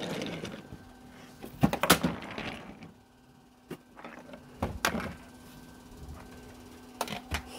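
Scattered sharp clicks and knocks from a wooden toy railway set being handled, as a toy engine is moved along the wooden track pieces. The loudest is a pair of knocks about two seconds in, over a faint steady hum.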